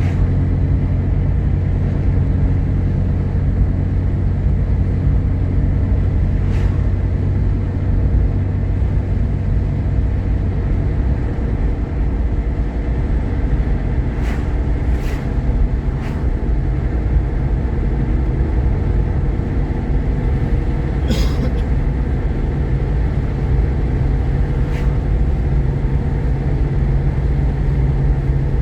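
Jeep Grand Cherokee with the 3.7 L V6 driving on the road, a steady engine and road rumble heard from inside the cabin. The engine note shifts about twelve seconds in, and a few faint clicks come and go.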